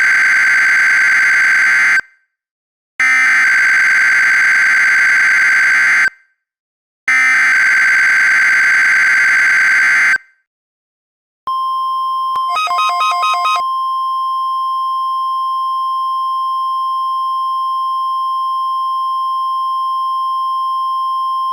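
Emergency Alert System SAME header: three harsh, buzzy data bursts with short silent gaps, the first ending about two seconds in. It is followed by the NOAA Weather Radio 1050 Hz warning alarm tone, a steady high beep held for about ten seconds, with a brief flutter over it just after it starts.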